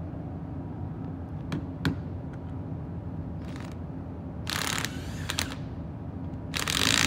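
Cordless drill with a socket on an extension, run in short bursts into a differential carrier: a brief run about three and a half seconds in, a longer one about a second later, and the loudest starting near the end. A few light metal clicks come first, over a steady low hum.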